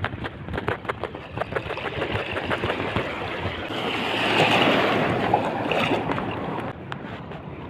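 Strong wind buffeting the microphone over choppy sea, with water slapping and many light clicks and knocks. A gust swells loudest about halfway through.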